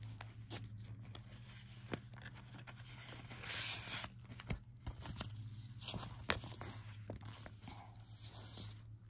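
Paper and plastic rustling as a pack of sticker sheets is opened and handled, with scattered light clicks and a longer sliding, tearing rustle about three and a half seconds in. A low steady hum runs underneath.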